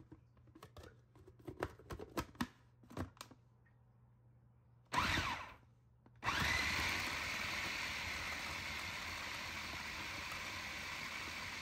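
An electric food chopper mincing chunks of raw beef with onion and spices. After a few clicks and knocks, it gives a short burst about five seconds in, then runs steadily.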